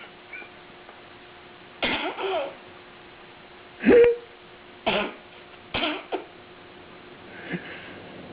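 A series of short, hoarse, cough-like vocal noises: five or six bursts between about two and six seconds in, the loudest about four seconds in with a brief pitched squeak.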